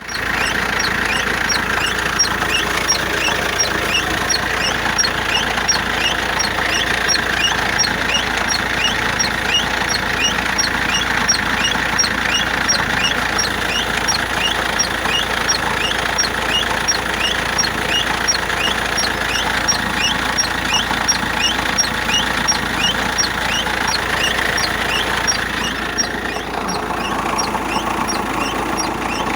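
Van front wheel making a regular metallic ticking, about one and a half ticks a second with each turn, over steady engine and running noise. The front wheel was bolted on in the wrong hole, sitting over a guide pin with a broken centring piece.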